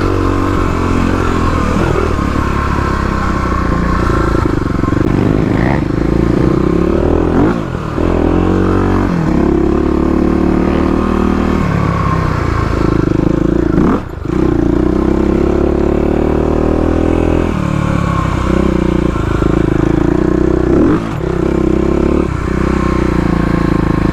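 Modified Kawasaki KLX351 dirt bike's single-cylinder engine, ridden at speed on a trail. Its note rises and falls with the throttle and gear changes, briefly dropping off about three times when the throttle is rolled off.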